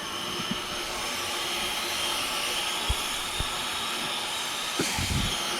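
Garden hose spraying water onto an air conditioner's condenser coil, a steady hiss, with a few faint knocks.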